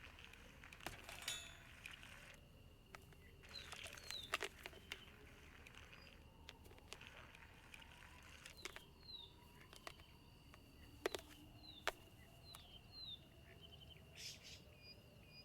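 Faint outdoor ambience from an animated film's sound-effects track: scattered sharp clicks and short falling chirps over a steady faint high tone.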